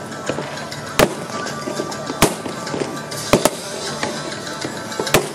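Aerial fireworks bursting: five sharp bangs spaced a second or so apart, two of them in quick succession near the middle, over a continuous crackle.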